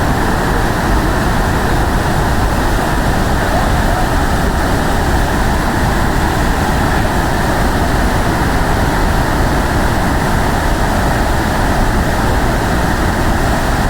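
Waterfall rushing: a loud, steady wash of falling water that holds even throughout.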